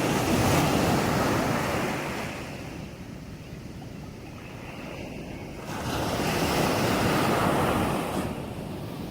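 Waves breaking on a sandy beach: two swells of surf, the first at the start and the second about six seconds later. Each builds and falls away over two or three seconds, with a softer wash in between.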